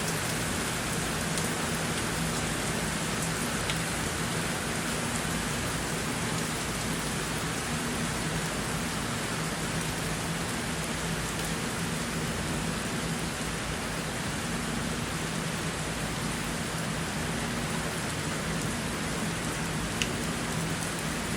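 Heavy rain falling steadily, an even hiss of drops with a few single drop ticks, over a faint low steady hum.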